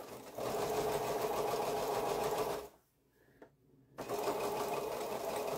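Pfaff electric sewing machine stitching a curved quilt seam in two runs. It runs steadily for about two and a half seconds, stops for about a second while the fabric is realigned, then runs again.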